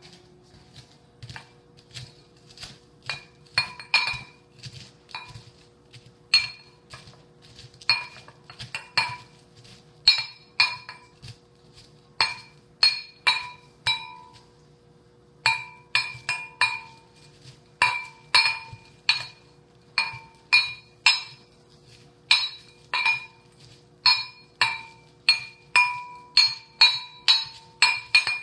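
A utensil pounding Oreo cookies in a hard bowl to crush them: repeated ringing clinks about two a second, with a pause of a second or so about halfway.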